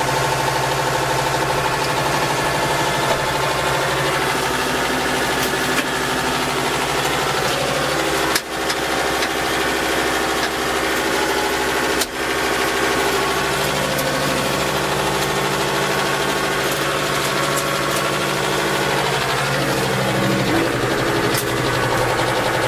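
Kubota tractor's diesel engine running steadily at about 1500 rpm while driving a tractor-mounted rotary snow blower that throws snow. The level dips briefly twice, about a third of the way and about halfway through.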